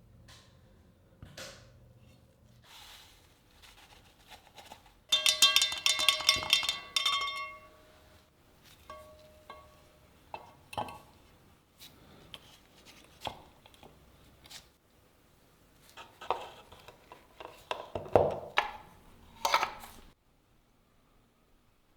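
Metal clinking and knocking as the knife and metal tools are handled, with a loud ringing metallic scrape about five seconds in and a cluster of knocks near the end.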